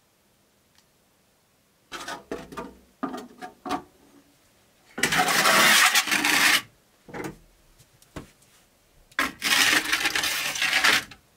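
Metal baking trays being pushed into a Russian stove: a few clanks about two seconds in, then two long, loud scrapes of tray on hearth, one around the middle and one near the end.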